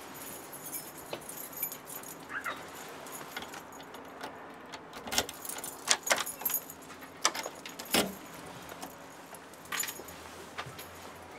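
A bunch of keys jangling and a key working a front-door lock: short metallic clicks and rattles, thickest a few seconds in.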